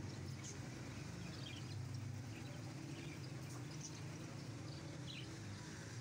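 Faint, scattered chirps of caged birds over a steady low rumble of street background.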